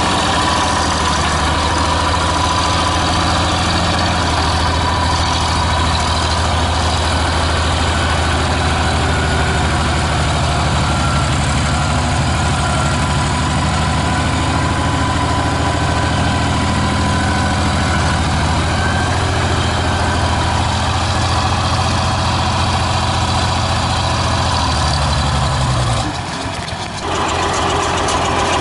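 Farmall 706 tractor's six-cylinder engine running steadily at a low, even note while the tractor is driven with its front loader. Near the end the sound cuts out for about a second, then the engine is heard again, idling.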